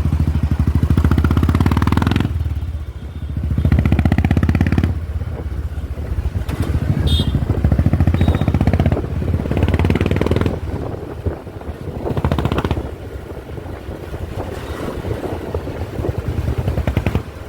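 Royal Enfield Bullet 500 Standard's single-cylinder engine running and misfiring, its pulse rising and falling as it is revved and let back several times.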